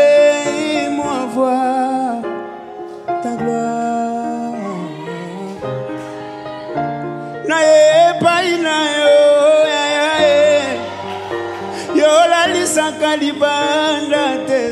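Male vocalist singing a slow gospel worship song over band accompaniment, holding long wavering notes and bending runs that swell louder about halfway through.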